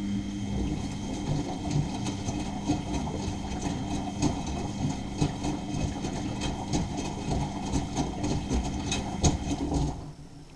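Miele Novotronic W923 washing machine running in its wash phase: a steady motor hum with irregular clicks and knocks, starting with a thump and cutting off abruptly near the end.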